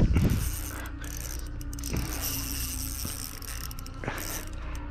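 Spinning reel cranked against a hooked fish: a steady mechanical whirr from the reel with a few short knocks.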